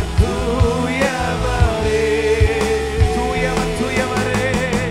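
Live worship music from a church band: a singer holding long, wavering notes over a steady drum beat and bass.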